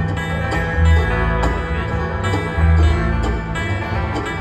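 Bluegrass string band playing live, with mandolin, acoustic guitar, fiddle and upright bass; the bass plucks a steady beat under the picked strings.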